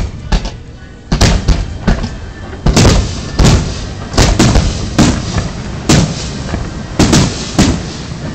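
Aerial firework shells bursting: a string of sharp bangs, some in quick pairs, roughly one to two a second, each with a short echoing tail.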